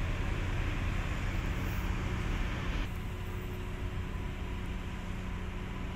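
Steady low drone of a ship's diesel engines under a broad rushing noise; the higher rushing drops away abruptly about three seconds in, leaving the hum.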